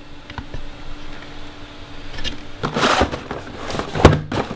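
Cardboard product boxes being handled and slid about: scraping rustles and a few knocks, loudest about three seconds and four seconds in.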